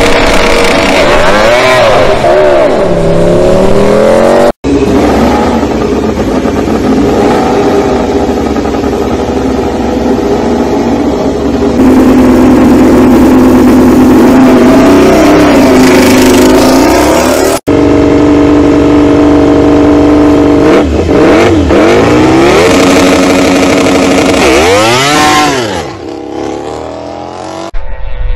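MotoGP four-stroke racing motorcycle engines in edited clips. First an engine whose revs swing up and down. After a sharp cut, an engine is held at steady high revs for several seconds. After another cut, the revs rise and fall again through gear changes.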